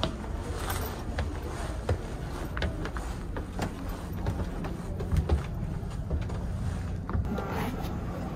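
Footsteps climbing wooden stairs: irregular soft thuds and clicks over a steady low rumble.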